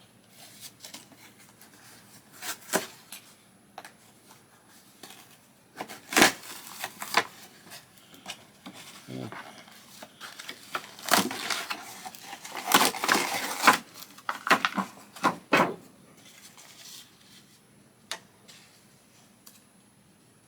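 Doll packaging being opened by hand: irregular clicks and crinkling, tearing rustles of plastic and cardboard, in bursts about six seconds in and again through the middle of the stretch.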